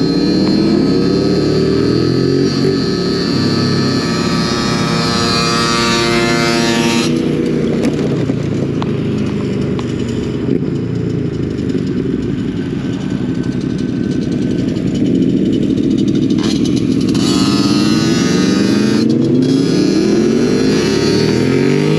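Motorcycle engine accelerating through the gears, its pitch climbing and then dropping at each shift, over wind rushing past the microphone. In the middle stretch the engine fades and mostly wind and road noise remain, before the revving climb comes back near the end.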